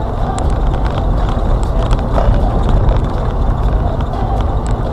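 Road and engine noise of a moving car heard from inside, a steady low rumble with a few scattered small clicks and rattles.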